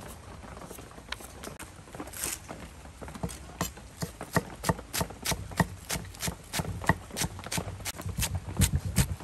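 Cleaver chopping on a wooden chopping board. A few scattered knocks at first, then from about three seconds in a steady run of sharp knocks about three a second, growing louder near the end.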